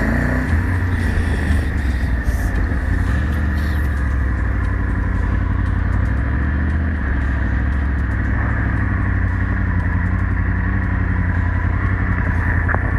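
Triumph Tiger 850 Sport's 888 cc inline-three engine running steadily as the motorcycle rolls slowly along at low speed.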